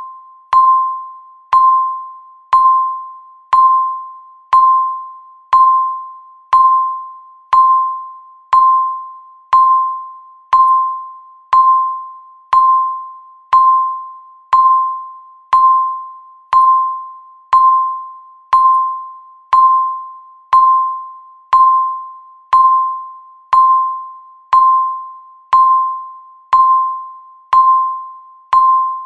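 Countdown timer beeping once every second: a short, mid-pitched electronic beep that starts sharply and fades quickly, repeating evenly.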